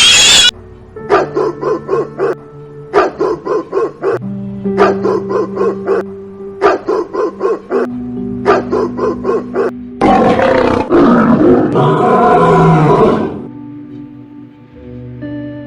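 Light background music with short runs of quick plucked notes, then about ten seconds in a loud animal roar lasting about three seconds, after which the music continues more quietly.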